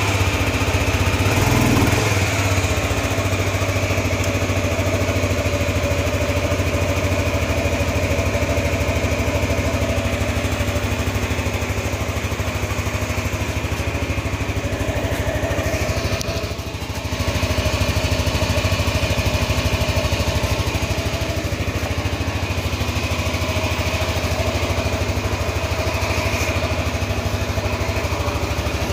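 2009 Suzuki Skywave 250 scooter's single-cylinder four-stroke engine running at a steady speed. It dips briefly about sixteen seconds in, then picks back up. The scooter has a stalling problem.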